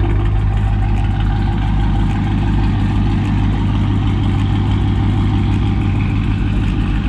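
2019 Dodge Charger R/T's 5.7 Hemi V8 idling steadily through newly fitted 1-7/8" stainless headers and a catted mid-pipe, with a deep, fast, even exhaust pulse.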